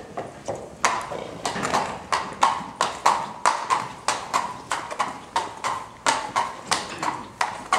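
Horse's hooves clip-clopping at a steady walk on a concrete barn aisle, about three strikes a second.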